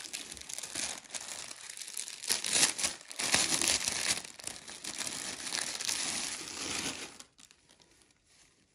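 Thin clear plastic packaging crinkling and rustling as a mesh fabric organiser is handled and pulled out of its bag, loudest in the middle and dying away near the end.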